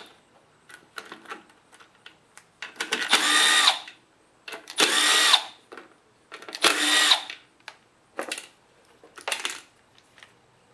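Milwaukee cordless power driver spinning out the 7mm bolts on a Kohler V-twin's plastic grass screen. The motor whines in about five short runs, the longest around a second, with light clicks between them as bolts and screen are handled.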